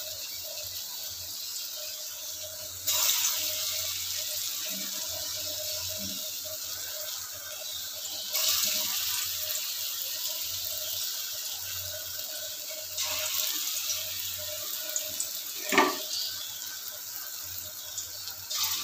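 Raw-banana and potato kofta balls deep-frying in hot mustard oil in a kadai: a steady sizzle that gets louder in steps, three times, as more balls are dropped in. A short knock near the end.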